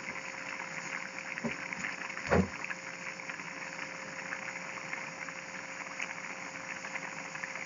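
A pot of papaitan broth boiling, a steady bubbling with a fine crackle and a faint steady hum underneath. A soft low knock about two seconds in.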